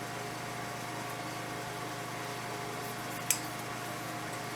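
Steady mechanical hum with fixed tones, like a fan or other running machine, and one sharp click about three seconds in.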